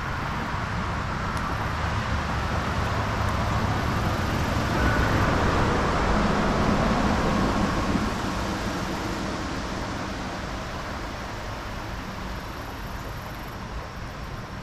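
Steady rushing of a shallow creek running over a rocky riffle, growing a little louder in the middle and easing off again.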